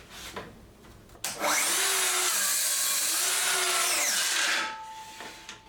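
Festool HKC 55 cordless track saw spinning up about a second in and cutting for about three seconds, its motor pitch dipping under load. The trigger is then released and the blade winds down, leaving a faint steady tone as it coasts.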